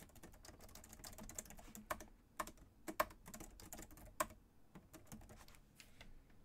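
Faint typing on a computer keyboard: a run of irregular key clicks, with a few louder strokes around the middle.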